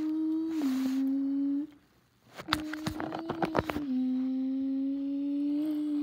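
A child's voice making a hummed engine drone for a toy race car, held on one note and dropping slightly in pitch twice, with a short break about two seconds in. A cluster of light clicks sounds around the middle.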